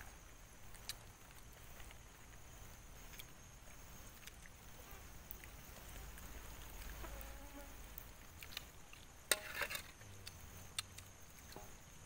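Faint clicks and scrapes of spoons and hands against bowls and a metal pan as people eat, with a louder little cluster of clicks about nine seconds in, over a faint steady high-pitched whine.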